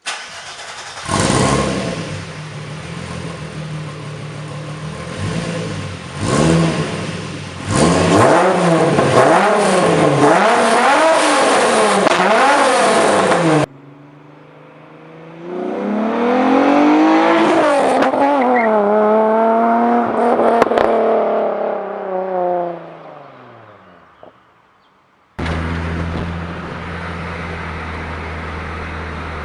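Volkswagen Golf Mk3 VR6 six-cylinder engine, heard in three clips. First it idles, then is revved in a series of quick blips, each rising and falling in pitch. Next comes one long pull, the pitch climbing and then dropping away, and last a steady idle.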